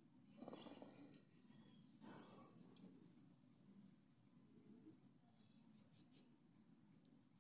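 Faint high-pitched chirp from an unseen small animal, repeating steadily a little under twice a second, with two brief soft rushes of noise about half a second and two seconds in.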